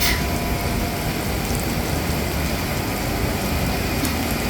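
Steady rain noise over a constant low rumble, with a single sharp click right at the start.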